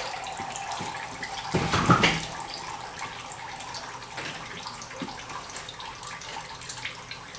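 Automatic transmission fluid trickling steadily from the open TH400 case down into a bucket below. There is a louder knock about two seconds in, and a few small clicks.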